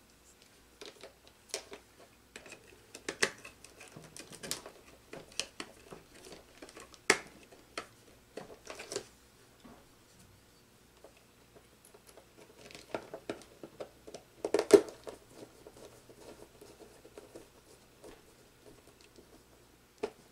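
Scattered light clicks, taps and rustles of wires and hand tools being handled while connecting wires into a control board's terminal blocks. A few sharper clicks come about three, seven and fifteen seconds in, the one near fifteen seconds the loudest.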